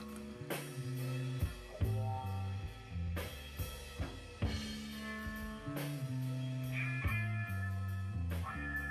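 Background music with a drum beat and a bass line.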